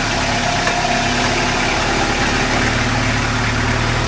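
Four-wheel-drive Toyota Hilux engine running steadily at low revs.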